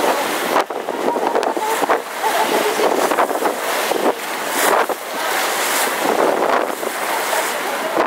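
Sea water rushing and splashing along the hull of a moving yacht, the bow wave's foam churning past in uneven surges, with wind on the microphone.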